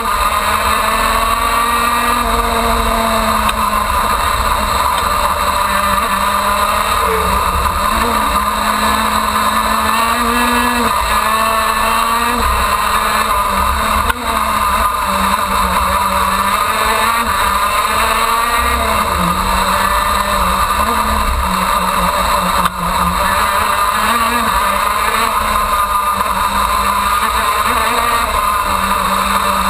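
KZ2 shifter kart's 125cc two-stroke engine heard from the driver's seat at racing speed, revving hard, its pitch rising and falling again and again through the corners and gear changes.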